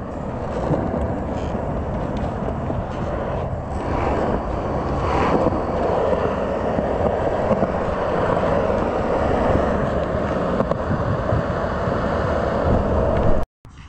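Skateboard wheels rolling over smooth concrete, a steady rolling noise.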